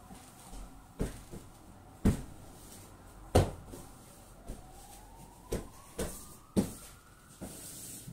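A run of sharp thumps, about six over several seconds, as a bedspread is patted and smoothed over a large bed. A faint siren rises in pitch through the middle and end.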